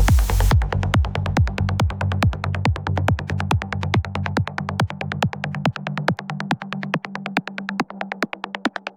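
Electronic trance music: a fast, even ticking beat over a low bass line, with a short hissing sweep at the start. The bass drops away about two-thirds of the way through, leaving the ticks.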